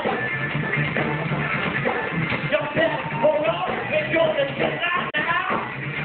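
Live rock band playing, with electric guitar, bass and drums.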